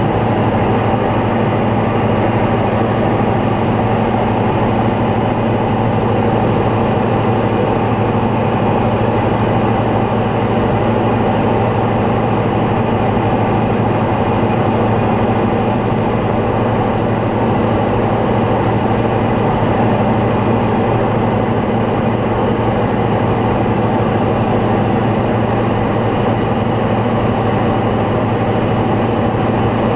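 Single-engine light aircraft's piston engine and propeller running steadily in flight, a constant low drone heard inside the cockpit.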